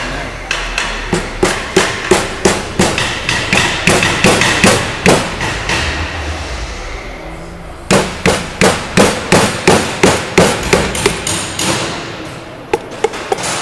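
Light taps of a wooden mallet handle on the top of a piston, driving the piston and its rings through a ring compressor into the cylinder of an air brake compressor. There are two runs of quick, even taps, about three a second, with a pause of a second or two between them, and a few lighter taps near the end.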